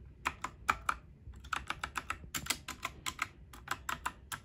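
Keys with brown switches on a STOGA 60% mechanical keyboard being pressed one after another: a run of sharp, uneven clacks, with a short pause about a second in.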